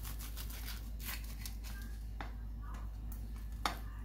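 Knife sawing through the crisp, butter-toasted bread of a potato sandwich: a quick run of crunchy crackles in the first second or so, then a few separate crackles and clicks, the sharpest near the end. The crunch is the sign of a crust roasted crisp and golden brown.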